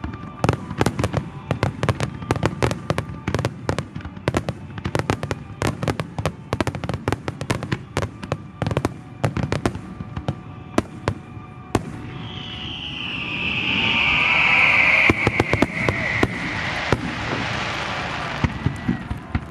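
Fireworks display: a rapid barrage of sharp crackles and bangs for about twelve seconds, then a swelling hiss with a high tone slowly falling in pitch.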